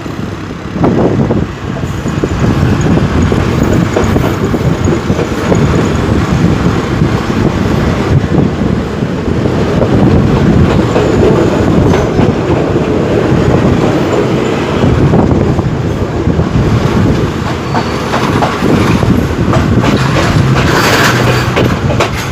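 Passenger train rolling in, its wheels clattering steadily over the rail joints with a continuous heavy rumble.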